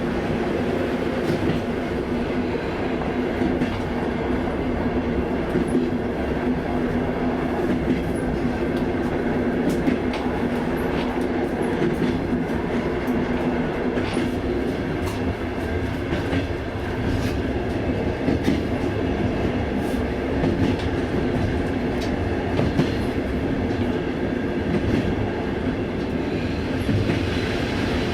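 Passenger train running along the rails: a steady rumble with scattered faint clicks of the wheels over the track.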